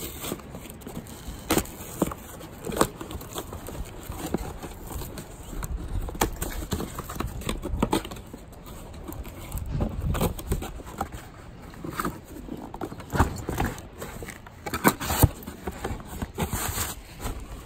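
Cardboard boxes being handled and a small mailing box cut open with a blade: irregular knocks, scrapes and rustles of cardboard and tape, several sharper knocks near the middle and toward the end.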